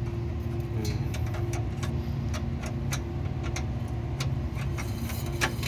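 Forklift engine idling steadily on freshly changed oil, with a light ticking about three times a second over the hum.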